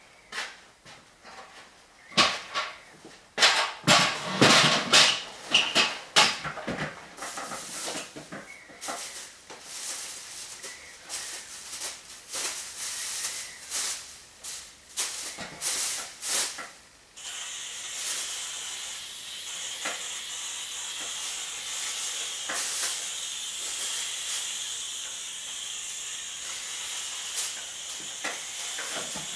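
Handling noises, rustling and knocks, as the stepladder is climbed beside plastic sheeting. A little over halfway in, a steady spray hiss starts and keeps on, as a treatment is sprayed onto the archive shelves.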